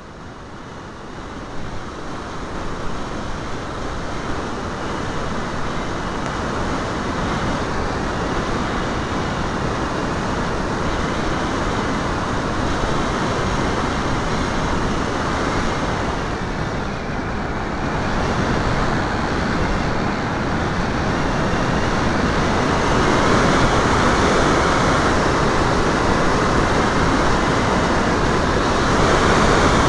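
Airflow rushing over the microphone of a camera carried on a model aircraft in flight: a steady rushing noise with no engine note, growing louder as the aircraft descends toward the treetops.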